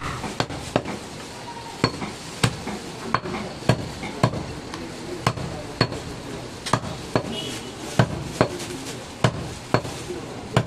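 Heavy butcher's cleaver chopping through goat ribs and bone on a wooden chopping block: a steady run of sharp chops, roughly one every half second to second.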